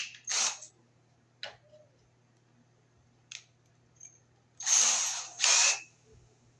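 Cordless drill's keyless chuck being worked by hand to fit and tighten a bit: several short rasping bursts, then two longer, louder ones about five seconds in.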